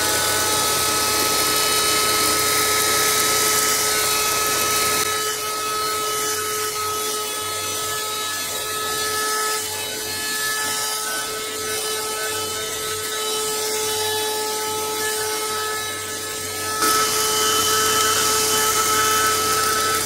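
Shinexpro wired 12-volt handheld car vacuum cleaner running steadily with a motor whine and rushing air, its bristle brush nozzle rubbing over seat fabric as it sucks up dirt. The rush of air quietens about five seconds in and comes back near the end.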